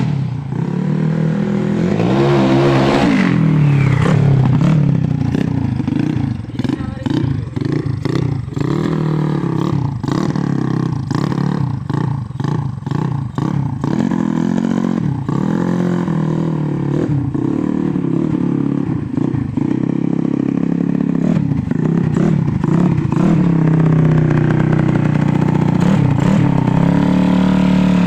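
Yamaha Mio Soul scooter's single-cylinder four-stroke engine, bored up to 200cc with a Tiger piston, being revved in repeated throttle blips. The revs rise and fall over and over, then hold higher and steadier near the end.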